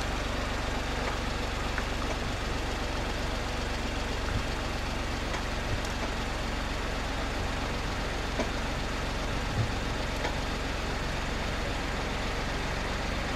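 Daihatsu Hijet Cargo kei van's engine idling steadily while stopped: a constant low hum under an even hiss.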